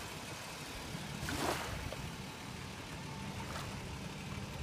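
A vehicle engine idling, a steady low hum, with a brief swell of rushing noise about a second and a half in.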